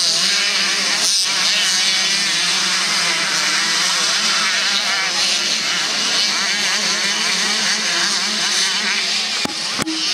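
Several motocross bikes racing, their engines overlapping and rising and falling in pitch as the riders rev through the dirt-track section. Two sharp knocks come near the end.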